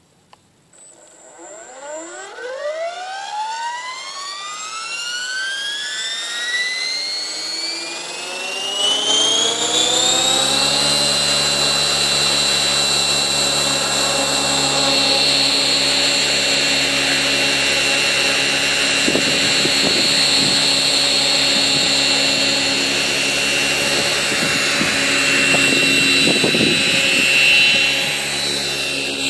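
Align T-Rex 550E electric RC helicopter's Align 600MX brushless motor and rotor head spooling up from rest: a whine rises smoothly in pitch for about ten seconds, a slow soft-start spool-up, then holds steady at head speed. Near the end the sound shifts as the helicopter lifts into a hover.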